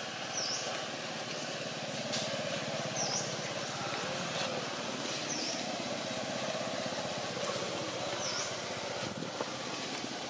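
Outdoor ambience with a steady low engine drone, and a bird repeating a short high chirp four times, about every two and a half to three seconds.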